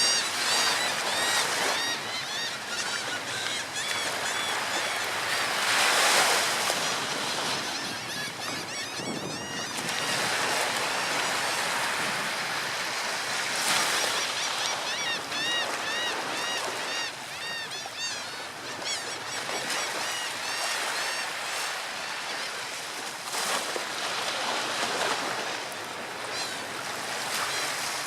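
Ocean surf washing on the shore, swelling as waves break about 6, 14 and 23 seconds in. Over it, birds give quick runs of high calls in several bouts.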